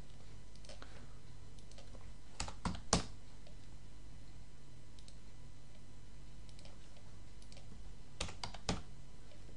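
Computer keyboard keys tapped in two quick runs of about three strokes each, about two and a half seconds in and again near the end, with a few fainter clicks between. A faint steady low hum runs underneath.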